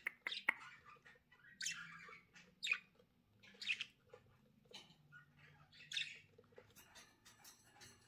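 Budgerigars giving short, scattered chirps and squawks, about one call a second, with small clicks in between.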